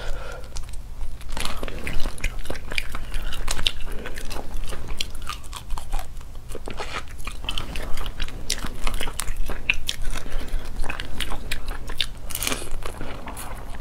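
Close-miked eating of spicy crayfish: the shells are bitten and cracked and the meat chewed, in a dense, irregular run of crunches and clicks.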